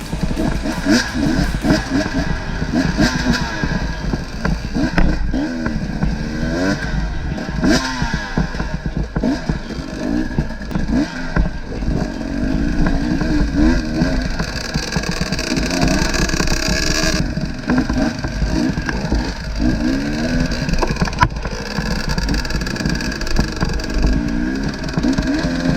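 Off-road enduro motorcycle engine revving up and down over and over, its pitch rising and falling every second or two, over a constant low rumble.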